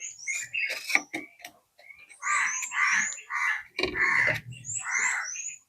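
Runs of short, repeated animal calls, several in quick succession, with high swooping chirps among them. There is a brief low rumble about four seconds in.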